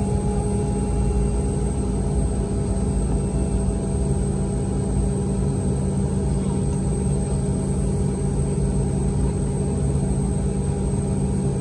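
Steady drone inside a Boeing 717's cabin: a low rumble with several constant hums and a faint high whine, holding an even level throughout.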